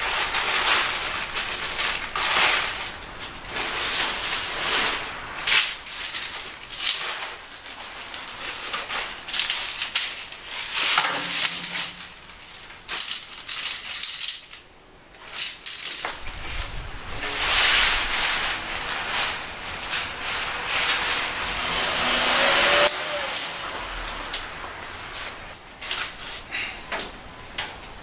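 Nylon fabric of an MSR Stormking tent being pulled and shaken out by hand, a loud crinkling rustle and swish that comes in repeated swells, with the clatter and clicks of tent poles being handled and fitted together.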